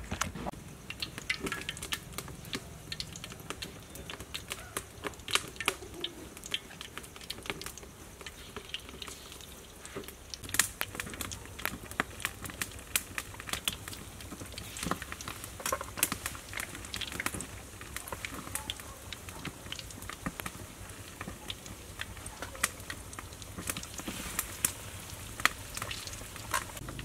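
Battered fish steaks deep-frying in hot oil in a wok: a steady sizzle with frequent irregular crackles and pops.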